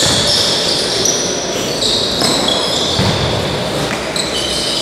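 Futsal play in a sports hall: shoes squeak over and over on the court floor and the ball thuds as it is kicked and bounces, all echoing in the large hall.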